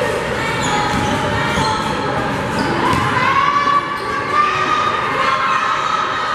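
Indoor basketball game: a ball bouncing on a hardwood court, sneakers squeaking and players and spectators shouting, with one long drawn-out call about three seconds in.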